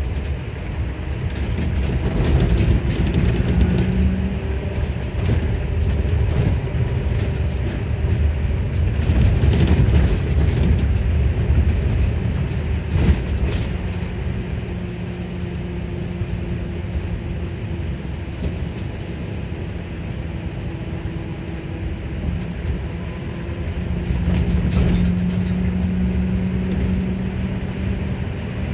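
Electric bus running, heard from inside the passenger cabin: a low road-and-tyre rumble with the traction motor's steady low hum, which comes in a few seconds in, again from about fifteen seconds, and is strongest near the end. A single sharp knock about halfway through.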